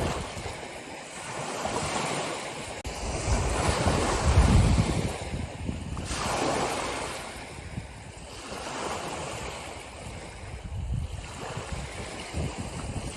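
Ocean waves washing in and receding in swells every few seconds, the strongest about four seconds in, with low wind buffeting on the microphone.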